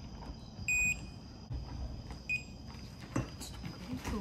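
Digital torque wrench beeping as the rivet press screw is tightened: a short high beep about three quarters of a second in and a briefer one a little past two seconds, the wrench signalling torque on its way to the set value. A few light metal clicks near the end.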